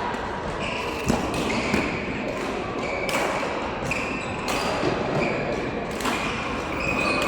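Badminton rally: rackets hitting the shuttlecock about once a second, with court shoes squeaking briefly on the floor between shots.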